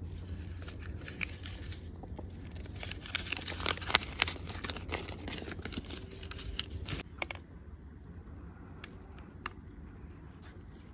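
Crinkling of a small plastic seasoning sachet being squeezed out over noodles, mixed with rustling of dry grass and leaves. The crackling is dense for about the first seven seconds, then thins to a few scattered clicks.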